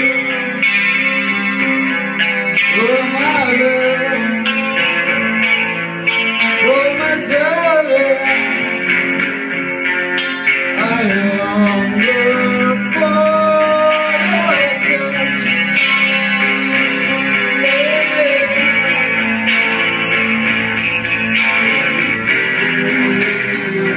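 Electric guitar played live: chords ringing steadily under a melody line with several bent, wavering notes.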